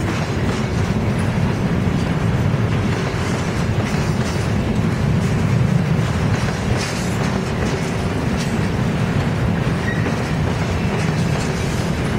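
Railroad cars rolling steadily past, a continuous rumble of wheels on rail with clicks over the rail joints.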